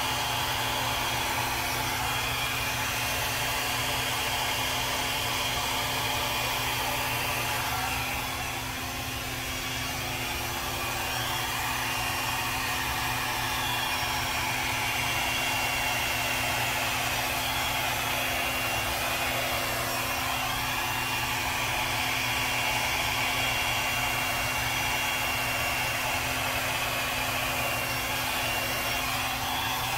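Handheld hair dryer running steadily over a steady motor hum, blowing wet acrylic paint outward across a canvas in a Dutch-pour blow-out. The rush of air shifts as the dryer is moved and dips slightly for a couple of seconds about a quarter of the way in.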